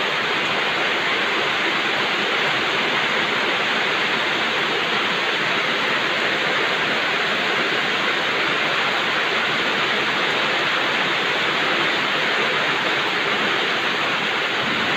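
Heavy rain falling, a steady even hiss that does not let up.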